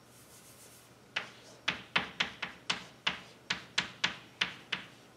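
Chalk tapping and scraping on a blackboard as a formula is written: a quick run of short, sharp clicks, about three a second, starting about a second in.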